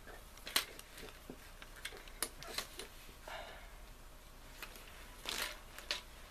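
Handling noise from a camcorder tripod being set up: scattered light clicks and knocks with a couple of short rustles.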